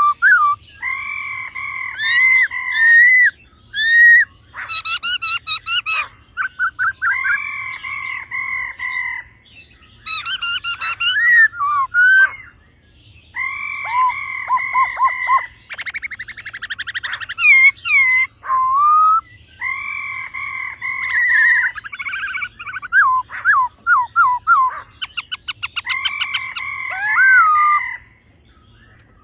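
Black-throated laughingthrush song: loud phrases of steady, double-toned whistles, each about two seconds long, alternating with fast chattering rattles and short swooping whistles, the pattern repeating every five or six seconds.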